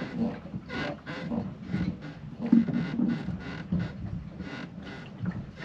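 A man muttering quietly under his breath, with irregular short clicks mixed in.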